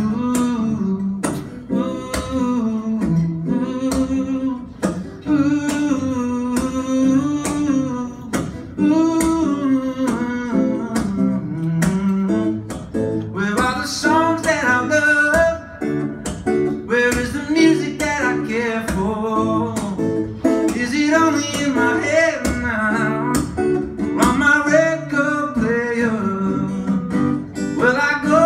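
A man singing with his own strummed acoustic guitar in a live solo performance.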